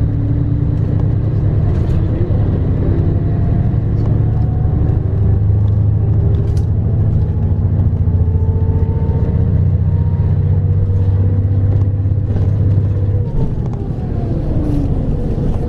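A vehicle under way, heard from inside it: a steady low rumble with a faint whine that slowly rises in pitch. About 13 seconds in, the rumble eases and the whine falls away as the vehicle slows.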